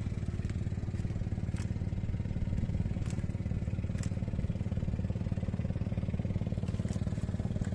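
A small engine running steadily at an even speed, with a few faint clicks over it.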